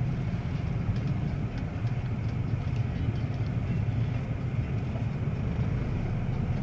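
Idling engines in a standstill traffic jam, heard from inside a car's cabin: a steady low hum.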